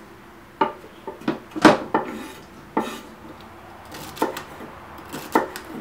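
A chef's knife chopping celery stalks on a wooden cutting board: about nine sharp, irregular knocks of the blade against the wood, bunched in the first two seconds, then a few more spaced out.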